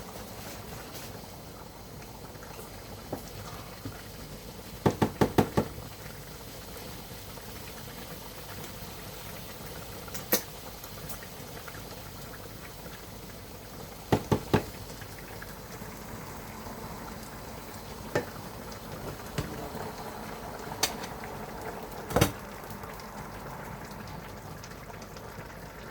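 Liquid bubbling steadily, with scattered sharp clicks and knocks: a quick run of four or five about five seconds in, three together around fourteen seconds, and single ones here and there.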